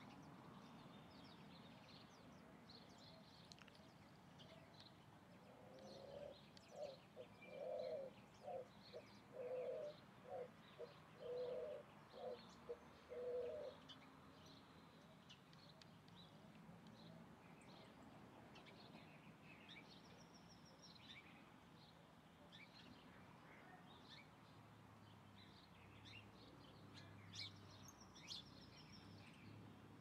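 A dove cooing: a quick run of about a dozen short, low coos starting some six seconds in and lasting about eight seconds. Faint chirps of small birds are heard throughout.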